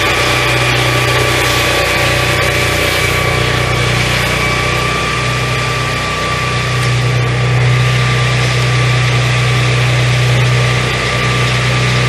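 Engine of a 12-inch swingblade sawmill running steadily, a constant hum with a thin steady whine above it, slightly louder in the second half.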